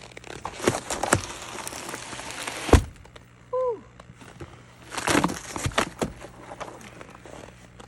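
Crunching and scraping on frozen snow or ice, broken by sharp knocks, the loudest a little under three seconds in, and a brief falling squeak about a second later, with another burst of crunching about five seconds in.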